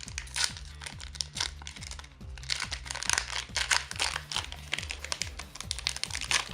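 Crinkling and crackling of a foil trading-card booster pack wrapper being handled and opened, over background music with a steady beat.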